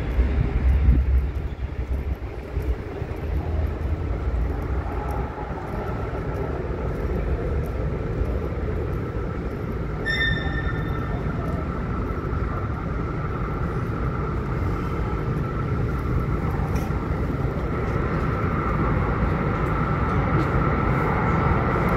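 Low rumble of an unseen light-rail train in the station tunnel, with a steady whine that grows a little louder near the end and a brief high squeal about halfway through.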